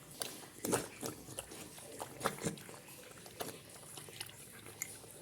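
Dogs eating a meal of dog food mixed with kangkong (water spinach): irregular chewing and mouth-smacking clicks, a few louder than the rest.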